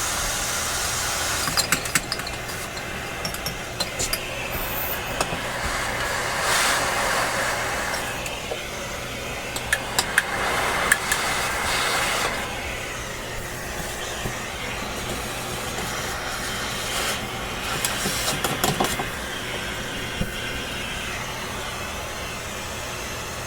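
Vacuum cleaner running steadily as it sucks dust off an old tube-radio chassis. Its hiss swells and fades as the nozzle moves, with scattered sharp clicks and rattles of the nozzle and debris against the metal.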